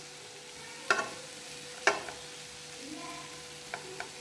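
Metal spatula stirring bitter gourd slices and onions in a non-stick frying pan, with two sharp scrapes against the pan about a second apart and two lighter taps near the end, over a faint sizzle as the bitter gourd is sautéed until browned. A faint steady hum runs underneath.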